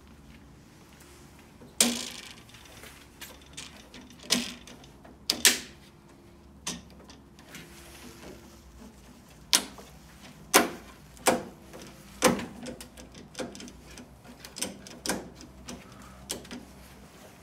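Plastic clips of a black JCW grille trim being pressed and snapped into an R56 Mini Cooper S grille: a dozen or so sharp clicks and knocks at irregular intervals, with quieter handling sounds between them.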